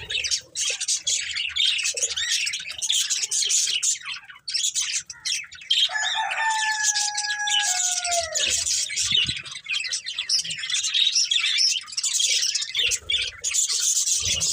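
Budgerigars chattering and chirping rapidly and continuously. About six seconds in, a longer, lower held call rises over them for about two seconds and falls in pitch at its end.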